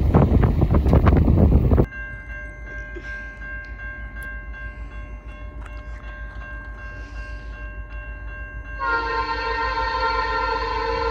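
Freight cars rumbling past close by with wind noise on the microphone, cut off abruptly about two seconds in. After a quieter stretch with faint steady tones, a diesel locomotive's air horn sounds a long, loud multi-note chord near the end.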